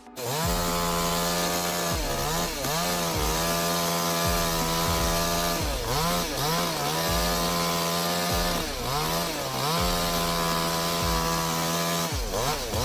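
Chainsaw running at high revs as it cuts into wood, its engine pitch steady but dipping briefly and coming back up several times.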